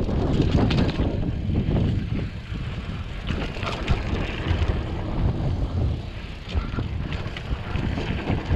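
Mountain bike riding downhill on a packed-dirt trail: tyres rumbling over the ground with frequent small rattles and knocks from the bike over bumps, and wind noise buffeting the microphone.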